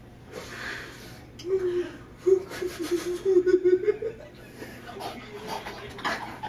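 A person laughing, in a run of short pulses lasting about two and a half seconds, starting about a second and a half in.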